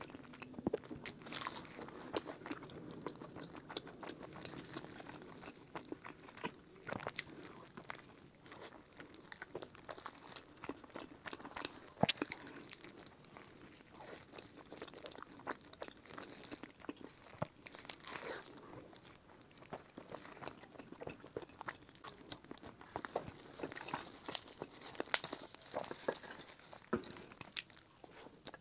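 Close-miked eating of pastries: bites and chewing with many small, irregular crunchy crackles and wet mouth sounds.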